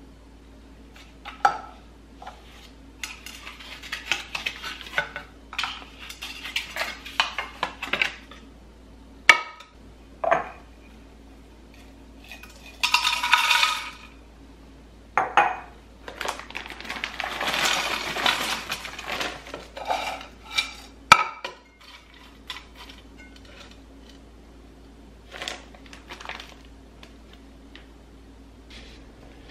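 Dry potpourri of dried leaves, small pine cones and wood pieces rattling and rustling as it is poured out of a glass jar into a shallow glass bowl, with light clinks of glass. It comes as a run of crackles and clicks with two longer pours in the middle, then only a few clicks near the end.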